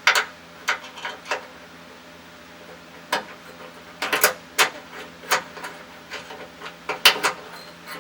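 Irregular clicks and knocks of a replacement light switch's parts being handled and pressed together while trying to snap a piece into place.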